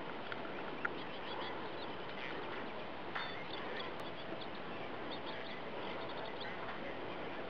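Small birds chirping faintly in short high calls, in scattered clusters, over a steady outdoor background hiss.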